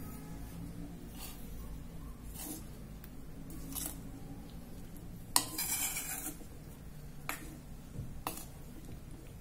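Utensils clinking against dishes: about six light, separate clinks, with a short scraping rustle just after five seconds in, over a low steady hum.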